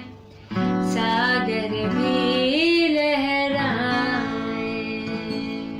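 A female voice sings a long, drawn-out phrase with gliding pitch over sustained instrumental accompaniment. It fades out near the end, closing the song.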